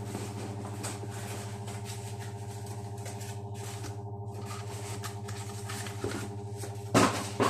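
Steady electric hum of an extractor fan running, with one short knock near the end.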